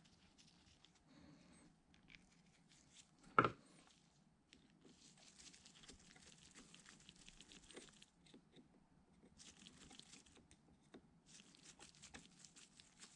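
Faint sounds of a cast-iron coolant pump cover plate being fastened by hand with a screwdriver and fillister head screws: one sharp click about three and a half seconds in, then stretches of light scraping and rustling.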